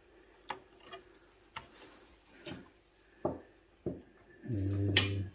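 Scattered light clicks and taps of fingers handling a printer circuit board. Near the end comes a short, steady low hum, under a second long, which is the loudest sound.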